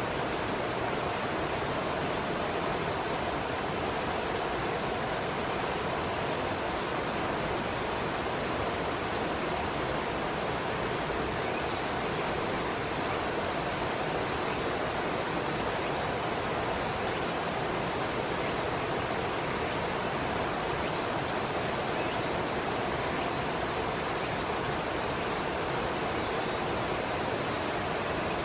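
Steady outdoor chorus of insects, a continuous high buzz that holds level throughout, over a constant even hiss.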